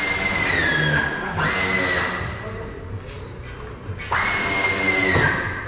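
A power tool running in three short bursts of a high whine, each about a second long, its pitch sagging slightly near the end of each burst.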